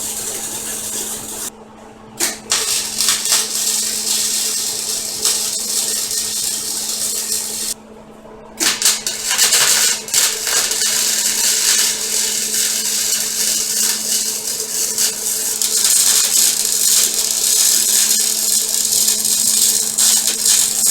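Wire-feed (MIG) welding: the arc crackles and hisses in long runs over the welder's steady hum, stopping briefly twice, about two seconds in and again about eight seconds in.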